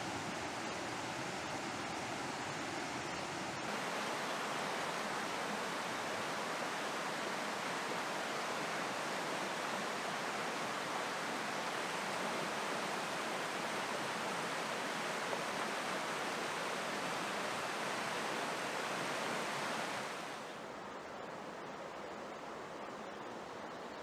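The River Dart rushing over rocks in a steady rush of water. About four seconds in it gets a little louder, and near the end it drops to a softer, duller rush.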